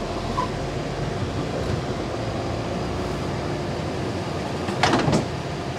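Steady running noise of a truck's diesel engine and cab, heard from inside the cab. A brief voice sound comes about five seconds in.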